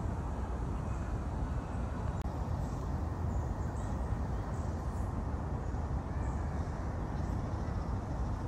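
Outdoor park ambience: a steady low rumble, with faint short high calls a few times.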